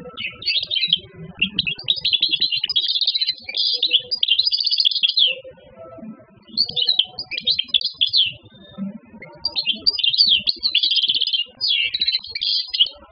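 Wild-caught European goldfinch singing in a cage: four phrases of rapid, high twittering song, the longest over three seconds, separated by short pauses.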